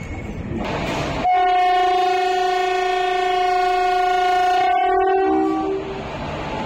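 A train's locomotive horn sounds one long, steady blast of about four and a half seconds, dropping in pitch as it cuts off. The train's running rumble is heard before and after it.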